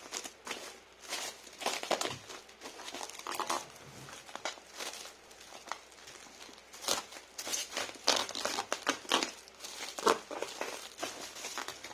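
Packing material crinkling and rustling in irregular bursts as it is handled and wrapped.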